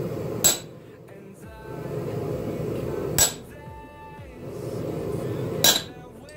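Hammer driving a half-ball punch into a red-hot steel bar on an anvil, stamping decorative marks. Three blows, about two and a half seconds apart, each ringing briefly.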